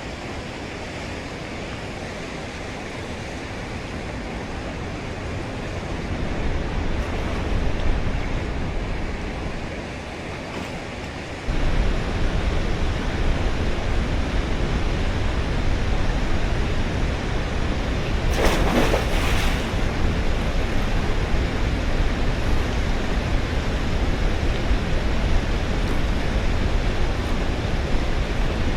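Waterfall water rushing as a steady noise, which jumps suddenly louder and deeper about a third of the way in, with a brief louder surge around two-thirds through.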